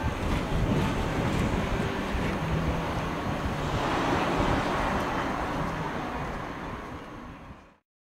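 Wind buffeting the microphone: a steady, gusty rumble with hiss above it, fading out near the end.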